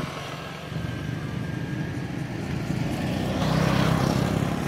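A motor vehicle's engine running as a steady low drone, growing louder about three and a half seconds in.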